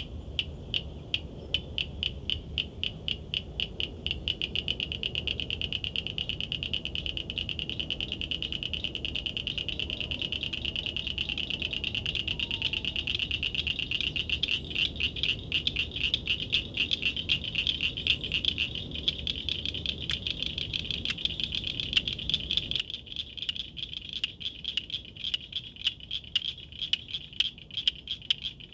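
Cricket frogs calling: a rapid series of sharp, cricket-like clicks, at first from one frog, then thickening into an overlapping chorus of clicking from about four seconds in. Near the end the clicking thins out again to a few separate clicks a second.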